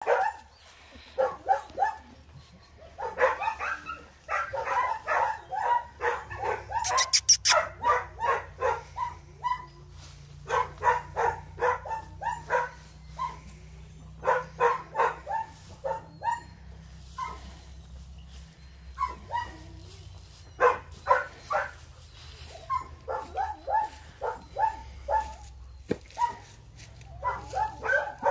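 Dog barking in rapid runs of short, high barks, about three a second, in bouts of a few seconds with short pauses between.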